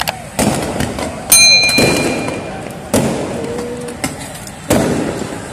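Five loud explosive bangs in a street clash between protesters and riot police, each dying away over about a second. The loudest, about a second in, carries a ringing metallic tone.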